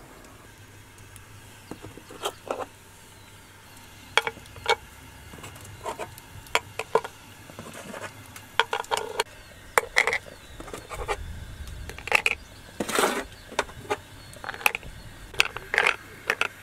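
Hard rounds of sesame brittle (sohan konjedi) clicking and clinking against a metal tray and a cut-glass dish as they are picked up and set down one by one: an irregular run of sharp clicks, with a short scrape a little past the middle.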